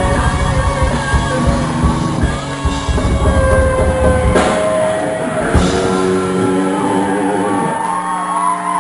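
Live heavy metal band playing loudly: distorted electric guitars over a drum kit. About halfway through the drums thin out and held guitar chords ring on.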